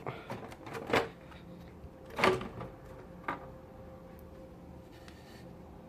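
Plastic back cover of a Dell Inspiron One 2320 all-in-one computer being pried off, held by small hooks: a few knocks and clicks, the loudest about two seconds in.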